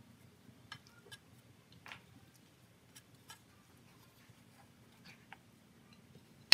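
A few faint, irregular clicks and taps over a low steady hum, with one sharper click at the very end.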